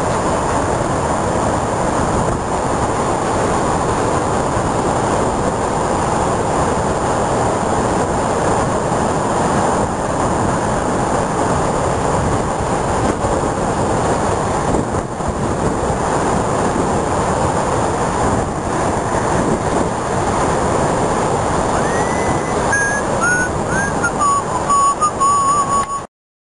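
Rough, storm-driven sea surf breaking against a seafront wall, a loud, steady rushing roar with wind buffeting the microphone. Near the end a faint wavering whistle-like tone comes in, then the sound cuts off abruptly.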